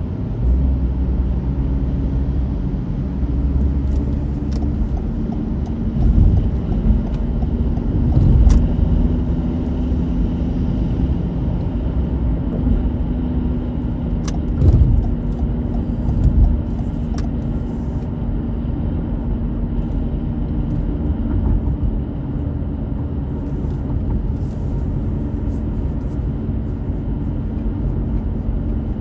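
Car driving along a road: a steady engine and tyre hum, with a few low thumps from bumps and some light ticks scattered through.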